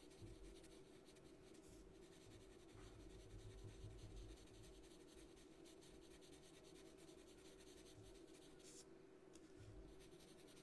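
Faint scratching of a pink pastel pencil shading over Pastelmat pastel paper in quick repeated strokes, over a steady low hum.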